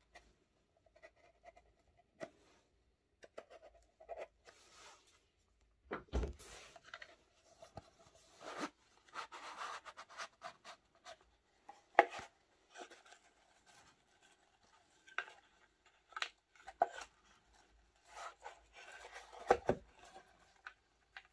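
Handling a small kraft cardboard box: a blade slitting the seal sticker, the inner tray sliding out of its sleeve, and rustling of a cotton pouch in shredded paper fill, with scattered scrapes and a few sharp knocks, the loudest about twelve seconds in.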